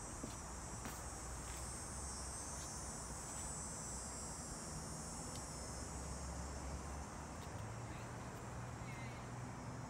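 Steady high-pitched drone of insects shrilling in the summer garden vegetation, with a faint low hum underneath.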